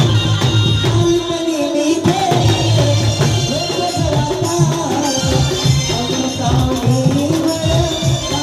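Tamasha folk music: a steady pulsing drum beat under a wavering, gliding melody line, with jingling percussion.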